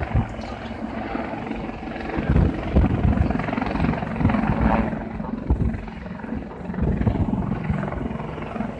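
A pair of Royal Navy display helicopters flying their routine: rotor chop and turbine noise, rising and falling in loudness as they manoeuvre.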